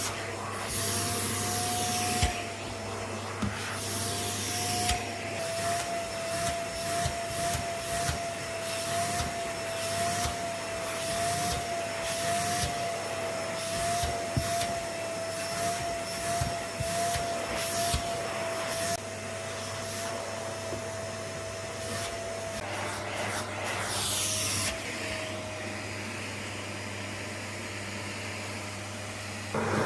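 Paper-bag vacuum cleaner running, its motor whine holding a steady, slightly wavering pitch, with scattered light knocks as the nozzle moves over the floor. About three-quarters of the way in, the whine breaks off for a couple of seconds into a rush of air, then comes back.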